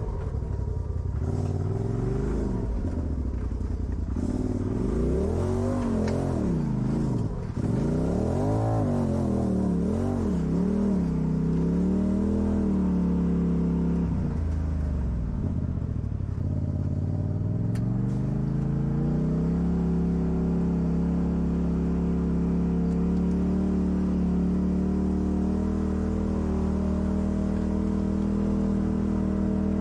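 Off-road vehicle engine revving up and down again and again under varying throttle. It drops low a little past halfway, then climbs and holds at a steady higher pitch for the last third.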